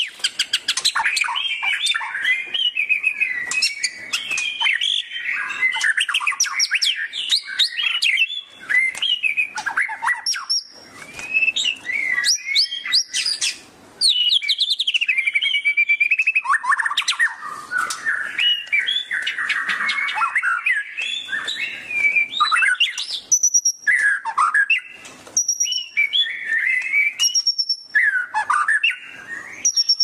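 White-rumped shama (murai batu) singing a long, varied song of fast whistles, trills and sliding notes, with brief pauses about eleven and fourteen seconds in.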